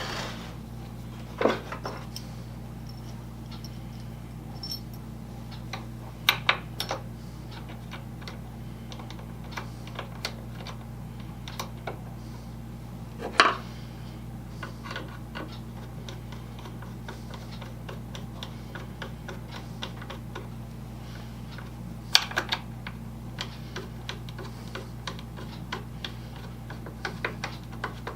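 Scattered clicks and light knocks of parts and hand tools being handled during bench assembly, with a few sharper knocks, over a steady low electrical hum.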